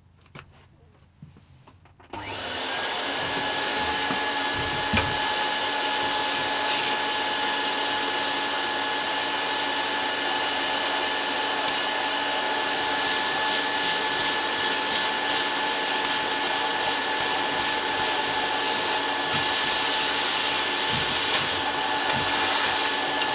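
Vacuum cleaner switched on about two seconds in and running steadily with a constant whine. Its nozzle is held at the transformer cores to suck up the rust and dirt that a stiff paintbrush is loosening.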